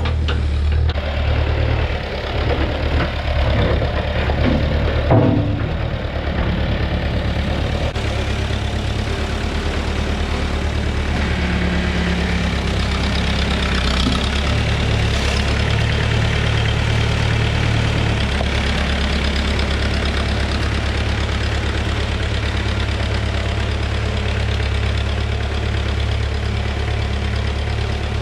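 Heavy equipment engine, likely the tractor with backhoe, running steadily, with a few clunks in the first several seconds.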